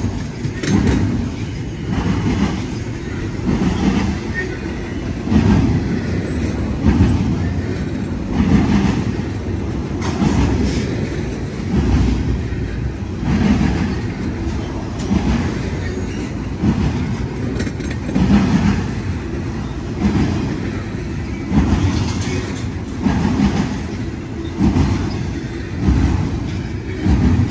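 Double-stack intermodal freight train's container well cars rolling past: a steady rumble with a clatter of wheels on the rails recurring about every second and a half.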